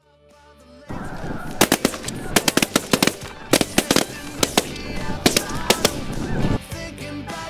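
A large flock of snow geese honking loudly under a rapid barrage of about twenty shotgun shots, the shots overlapping and coming thick and fast over about four seconds. The sound fades in at the start and drops suddenly near the end.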